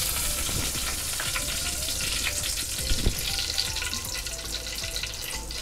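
Mustard seeds spluttering in a spoonful of hot oil in a kadai: a steady sizzle dotted with many small pops and crackles, the sign that the oil is hot enough for tempering.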